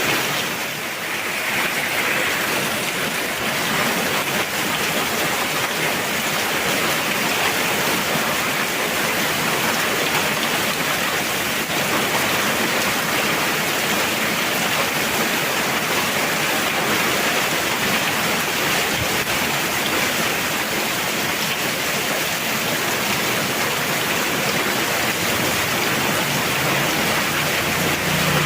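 Heavy rain pouring steadily, a dense even hiss of water.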